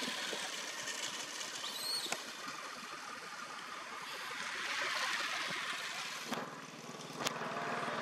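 Outdoor rushing hiss that swells and fades, with a brief high chirp about two seconds in and a couple of sharp clicks near the end.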